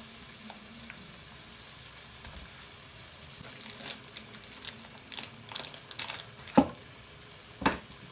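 Food cooking in a pot on a gas stove gives a steady sizzling hiss. From about four seconds in there are light clicks and rustles as a plastic sausage packet is handled, and two sharp knocks come near the end.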